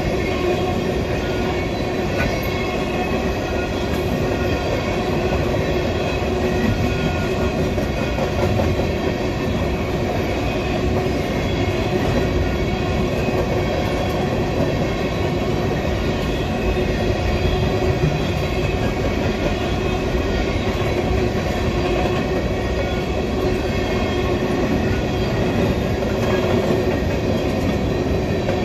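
Freight train of coal gondola cars rolling past close by: a steady rumble and clatter of steel wheels on the rails, with thin steady squealing tones from the wheels over it.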